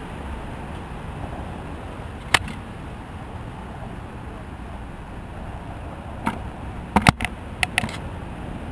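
Skateboard knocks: a single sharp clack about two seconds in, then a quick run of five or six clacks and board slaps near the end as the board hits the skate box and the asphalt, over a steady low outdoor rumble.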